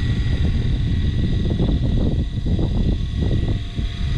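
Electric self-stow/deploy mechanism of a Minn Kota saltwater bow-mount trolling motor running, tilting the motor shaft, with a steady whine. Gusty wind rumble on the microphone underneath.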